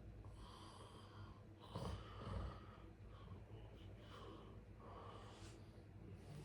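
A sleeping person breathing, a few separate airy breaths. The loudest, about two seconds in, has a brief low rumble like a short snore.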